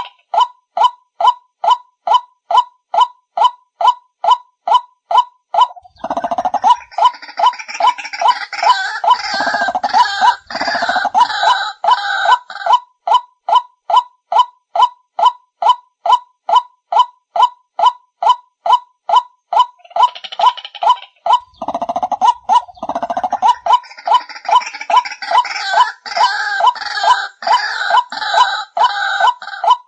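White-breasted waterhen calls played as a bird lure: a steady run of short, rising 'ruak' notes, about two a second, repeating without a break. About six seconds in, and again about twenty-one seconds in, a denser chorus of calls joins the notes for several seconds.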